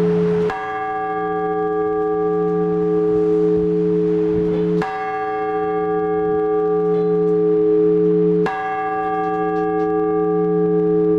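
Orthodox church bell tolled slowly: three strokes about four seconds apart. Each strike rings out bright and fades into a steady low hum that carries on between strokes.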